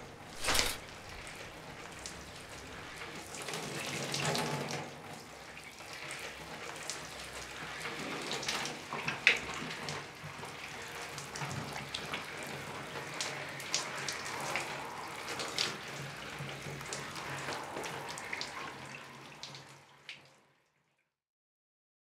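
Tap water running into a bathroom sink and gurgling down the drain, with splashes and drips and a sharp knock just after the start. It cuts off suddenly near the end.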